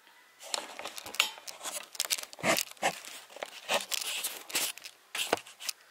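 Camera handling noise: irregular crinkling, scraping rustles close to the microphone as the camera is gripped and moved.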